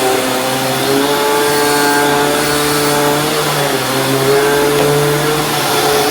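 Dirt Devil Ultra Vision Turbo upright vacuum cleaner running on carpet, a loud steady motor hum and airflow rush, its pitch shifting slightly now and then.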